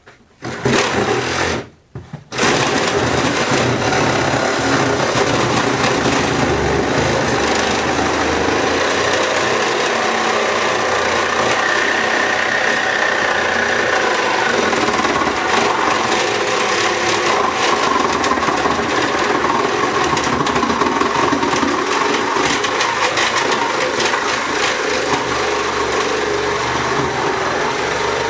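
Cordless power saw cutting into a refrigerator: a short run, a brief stop, then one long steady run that cuts off near the end. Its small battery is running down.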